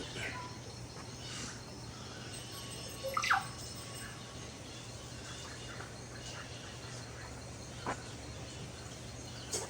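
Birds calling in tropical forest: a few short chirps, the loudest a sharp downward-sweeping whistle about three seconds in, over a steady low hum.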